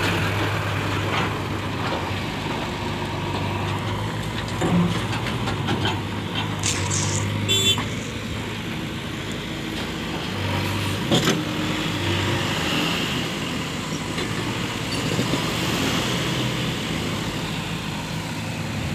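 Heavy diesel engines of backhoe loaders and tipper trucks running steadily while soil is dug and loaded, with a few short knocks about seven and eleven seconds in.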